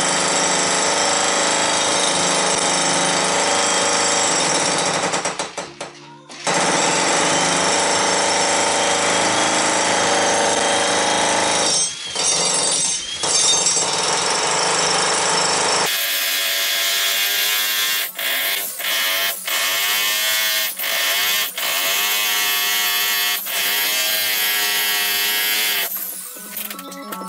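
Harbor Freight electric jackhammer chiselling a concrete basement floor, running continuously with a short stop about six seconds in. From about two-thirds of the way through, music with a singing voice is prominent.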